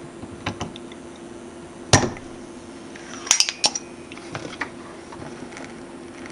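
Spring-loaded desoldering pump (solder sucker) firing with one sharp snap about two seconds in, followed a second or so later by a few quick clicks and clinks.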